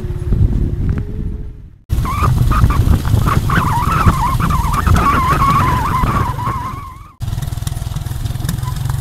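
Motorcycle on the move along a dirt road: a heavy low rumble of engine and wind on the microphone. It drops out abruptly about two seconds in and again near the end; in the stretch between, a wavering high squeal runs over the rumble.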